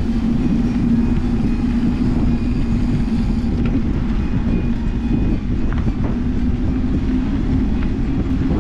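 Mountain bike rolling along a dirt track: a steady low rumble of knobby tyres on packed dirt and gravel, mixed with wind on the microphone, with a few faint clicks.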